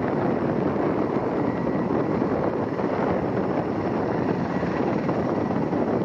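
Sikorsky S-64E Air-Crane helicopter's rotors and twin turbine engines running steadily as it flies low, mixed with wind noise on the microphone.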